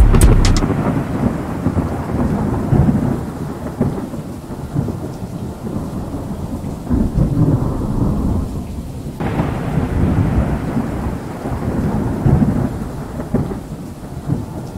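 Wildfire burning through pine trees: a loud, dense low rumble with crackling. It cuts off abruptly about nine seconds in and starts again brighter and hissier.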